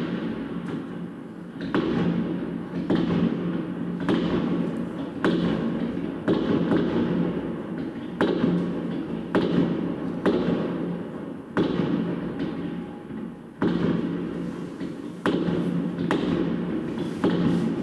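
Fireworks going off: a string of sharp bangs one to two seconds apart, each followed by a rolling rumble that dies away.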